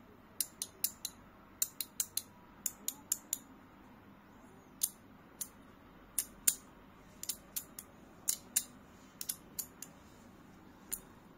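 Parts of a handheld slider fidget snapping into place as they are slid and turned: sharp clicks, irregularly spaced, often in quick runs of two to four.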